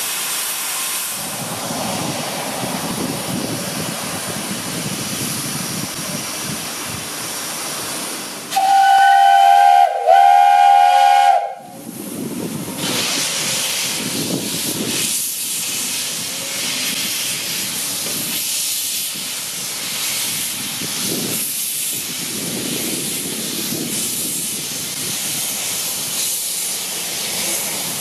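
Narrow-gauge steam locomotive (an Andrew Barclay 0-4-0 well tank) hissing steam, then sounding two loud blasts on its steam whistle about nine seconds in: the starting signal. It then moves off with steam hissing from its open cylinder drain cocks, the hiss swelling and fading in slow, uneven beats.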